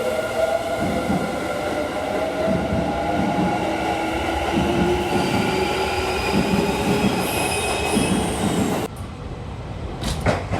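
Electric train running through the station, its motor whine made of several steady tones rising slowly in pitch over a rolling rumble, with a high wheel squeal near the end. The sound cuts off suddenly about nine seconds in, followed by a couple of sharp knocks.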